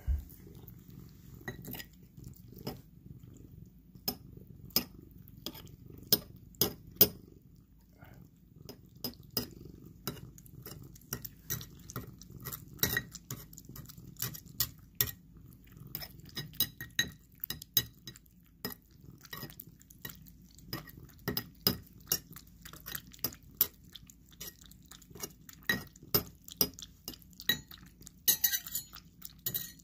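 Domestic cat eating wet paté cat food from a ceramic bowl: wet chewing and licking with many irregular sharp clicks and clinks against the bowl. A denser run of high scraping clinks comes near the end.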